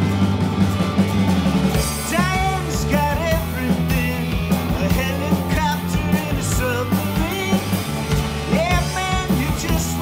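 Rock band playing: drums, electric bass and electric guitar, with a sung vocal line coming in about two seconds in.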